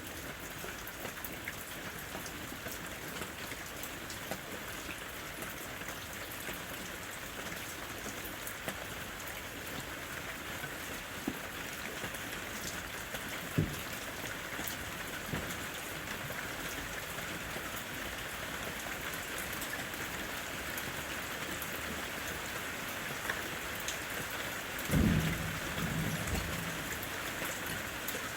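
Steady rain falling in a forest, with one sharp tap about halfway and a short, low rumble of thunder near the end.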